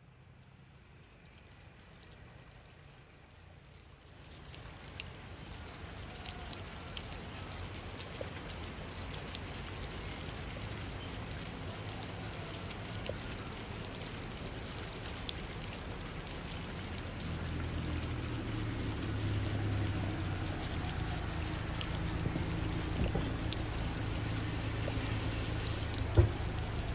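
Steady sound of running or falling water that fades up from very quiet over the first few seconds and grows gradually louder, with a few sharp knocks near the end.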